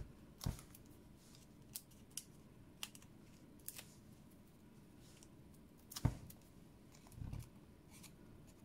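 Paper crafting at a desk: faint rustles and small ticks as cardstock strips fitted with foam adhesive dots are handled and pressed together. There is a sharper tap about half a second in, a louder one about six seconds in, and a soft thud just after it.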